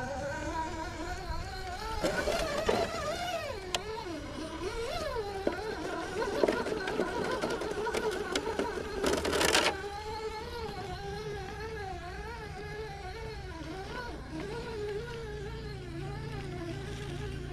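Electric motor of a radio-controlled car whining, its pitch rising and falling quickly as the throttle is worked. A short burst of rushing noise comes about nine seconds in.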